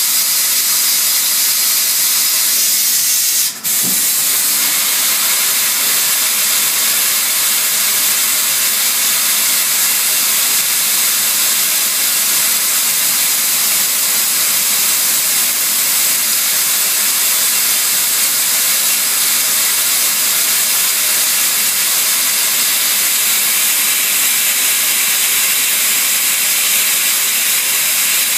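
CNC lathe turning a part under coolant spray: a steady, loud hiss, with a brief dip about three and a half seconds in.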